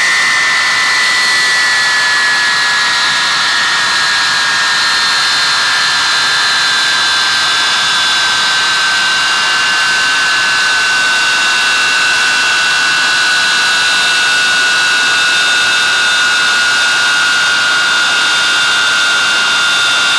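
Avro Vulcan XM655's Olympus turbojet engines running, a steady loud roar with a high whine that slowly falls in pitch.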